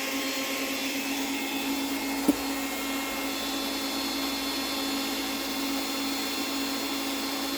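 Steady hum of a small electric motor running without change, with a single sharp click a little over two seconds in.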